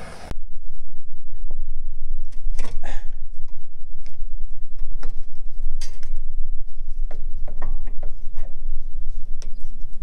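Scattered metal scrapes and clicks as a steel tool prods and pries at burning rubber inside a trailing arm bushing sleeve, over a loud, steady low rumble.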